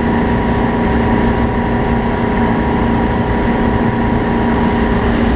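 Wake surf boat's inboard engine running steadily at surf speed, a constant drone with steady hum tones, over the rushing water of the wake.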